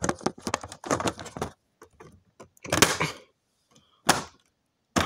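Plastic exit sign faceplate and housing being snapped together and handled: a quick run of clicks and knocks, then two louder scraping rustles about three and four seconds in.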